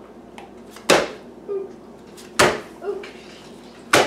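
Playing cards being dealt one at a time onto a table, each laid down with a sharp snap, three in all about a second and a half apart.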